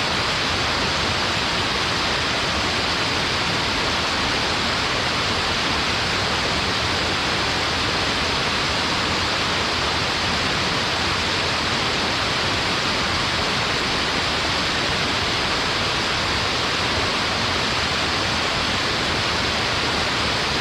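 Waterfall pouring steadily: an unbroken hiss of falling water, even in level, with most of its energy in the middle and upper range.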